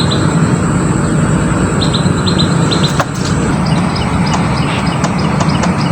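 Bird chirping in short quick runs of two or three high notes over a steady low rushing background, with one sharp click about halfway through.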